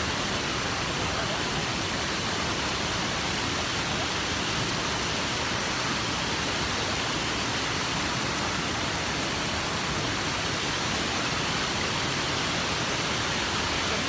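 Small waterfall and rocky stream in spate, with water rushing over boulders in a steady, loud, unbroken rush.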